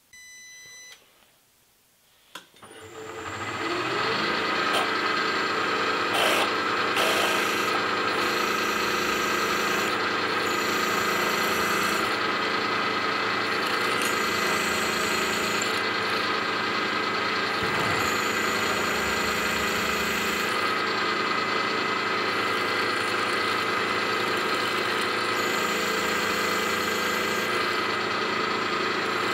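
Machine spindle starting up after a short beep and a click, winding up over about a second and a half, then running steadily with a motor whine. The tool cuts into the aluminium part, adding a hissy cutting noise that comes and goes.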